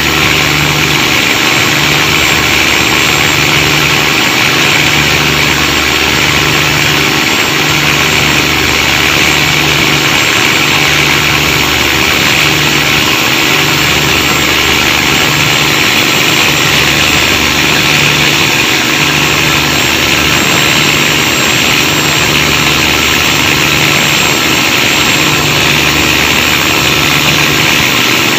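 Cummins KTA19 marine diesel, a turbocharged in-line six, running loud through its exhaust stack, with a low throb that swells and fades about every second and a half. The noise is the trouble being shown, along with black exhaust smoke.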